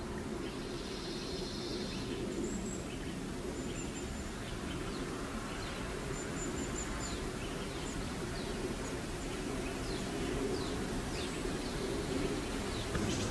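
Birds chirping outdoors: many short, quick downward-sweeping calls, thicker in the second half, with a few brief high whistles, over a steady low background noise.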